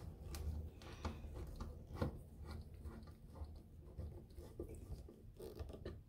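Faint, irregular clicks and scrapes of a hand screwdriver turning a screw into an air conditioner's cover plate.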